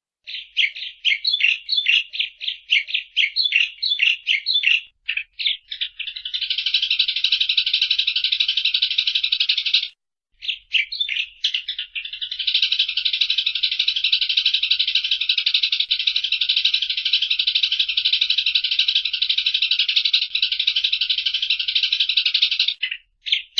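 Eurasian tree sparrow chattering: a run of sharp chirps at about three to four a second, then long stretches of fast, unbroken chatter, broken briefly twice.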